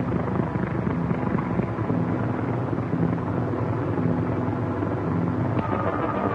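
Motorboat engines running steadily, a dense rough drone. Music starts to come in near the end.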